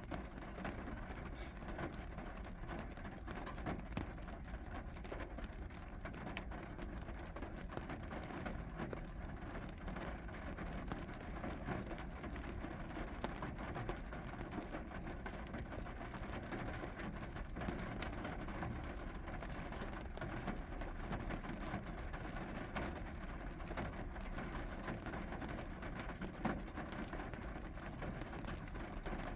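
Steady rain falling, with many small drop clicks over a continuous low rumble.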